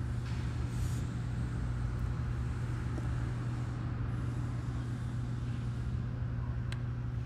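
Steady low hum over even background noise: ambient room tone with a constant low drone, like distant traffic or machinery.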